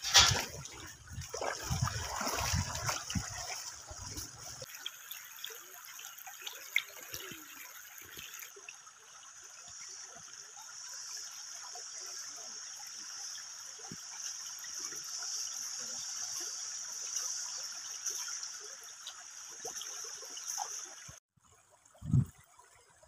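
Shallow river water trickling and splashing steadily around the turning paddles of a bamboo water wheel, with some low knocks in the first few seconds; the sound cuts off suddenly near the end.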